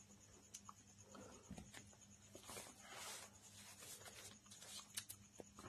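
Faint scratching and rustling of a ballpoint pen and paper, thickest in the middle, with a few light clicks over a faint steady electrical hum.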